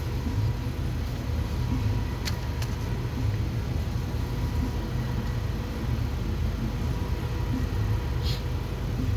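Steady low engine-like rumble with a faint steady high whine. Two light clicks come a little over two seconds in, and a brief hiss near the end.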